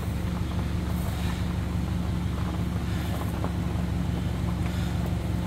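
A car engine running at a steady pitch, heard as an even low hum, with a few faint ticks over it.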